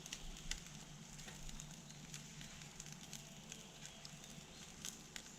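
Wood fire in a fire pit crackling faintly, with scattered small pops, while chicken skewers grill over it.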